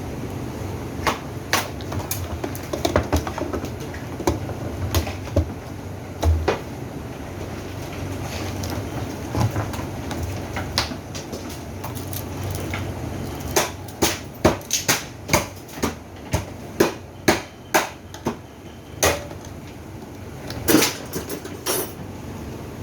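Irregular sharp knocks and clicks of hard parts and tools being handled, over a steady low rumble. The knocks come thicker and faster for several seconds after the middle.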